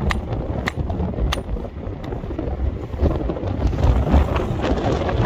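Hammer striking a stone nodule held in the hand to split it, three or four sharp clicks about two-thirds of a second apart in the first two seconds, the last one faint. Strong wind rumbles on the microphone underneath.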